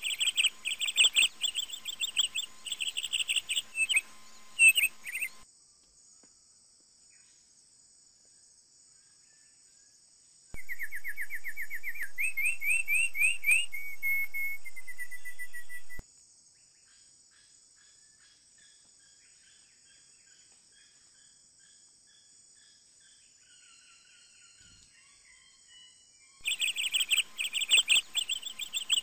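Birds chirping and singing: rapid chirping for the first few seconds and again near the end, and a loud rising trilled song in the middle that starts and stops abruptly, like a spliced-in recording. Faint scattered calls fill the gaps, over a steady high-pitched buzz.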